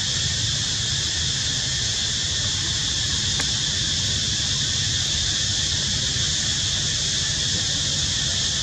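A steady, high-pitched insect chorus, with a low rumble of wind on the microphone underneath.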